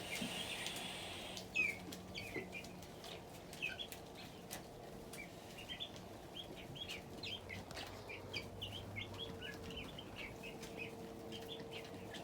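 Chicks peeping, many short high cheeps in quick succession, over a faint steady hum.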